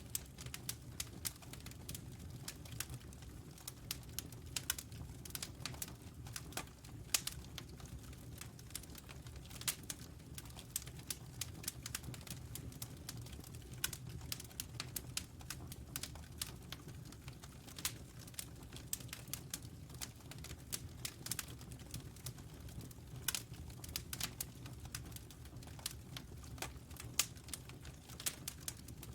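Wood fire crackling, with irregular pops and snaps over a low steady rumble.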